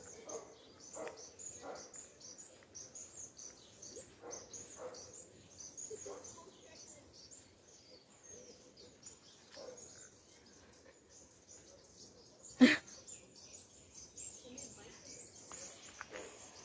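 Small birds chirping steadily in garden greenery, with faint distant voices. A single sharp knock stands out about two-thirds of the way through.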